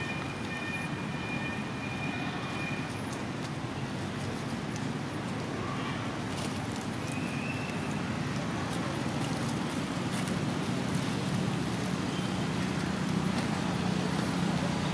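Steady outdoor background of distant road traffic, with a low motor hum growing louder over the last few seconds. A few faint high chirps come and go.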